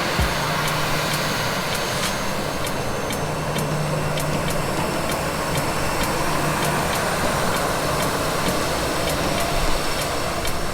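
Jet airliner engines running with a steady, even noise and a low hum underneath.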